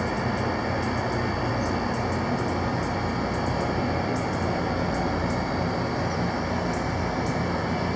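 Steady rush of wind over the microphone, with faint scattered high ticks.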